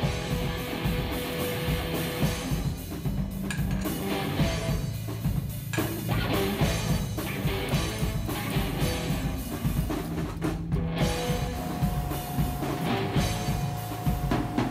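Background rock music with drums and guitar.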